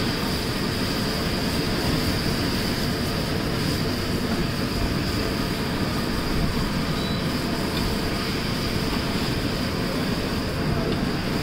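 Steady rumbling noise with a constant high hiss at a large iron tawa, where an egg mixture is frying and sizzling in oil over the burner.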